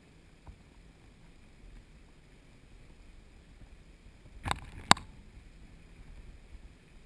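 Underwater in a river: a faint steady hiss, with two sharp clicks about half a second apart just past the middle, the second louder, and a smaller click near the start.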